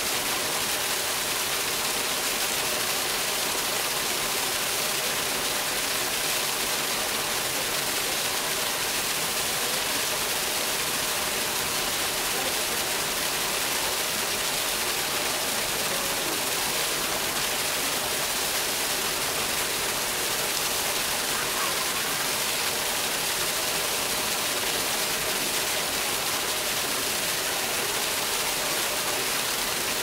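Artificial waterfall: a thin column of water falling into a pool and splashing steadily, a continuous even hiss.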